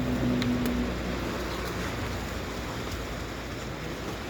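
Steady wash of sea surf and wind, with a faint low hum for about the first second.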